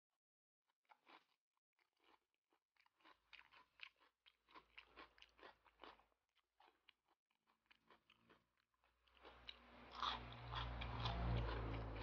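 Close-up chewing and crunching of a mouthful of squid salad with raw green vegetables: a run of small crunches that turns louder and denser about nine seconds in.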